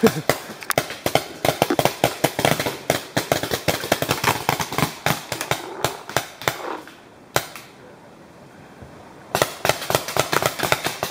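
Several paintball markers firing in rapid strings of sharp pops, many a second. The firing stops for about two seconds past the middle, apart from one pop, then starts again.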